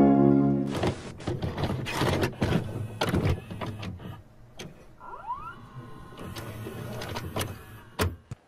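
Video-cassette recorder mechanism as an editing sound effect: a run of irregular clicks and clunks of a tape being loaded, with a short rising motor whine about five seconds in.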